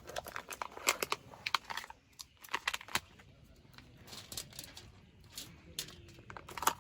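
Aluminium foil crinkling in irregular short crackles as it is handled while a foil-pack meal is put together.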